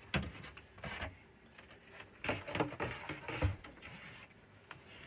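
A few short knocks and clatters as the loose bench top panel is handled and set down, the loudest cluster coming about two to three and a half seconds in.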